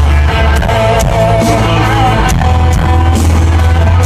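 Live country band playing loud: held bass notes under guitar lines, with a steady drum beat.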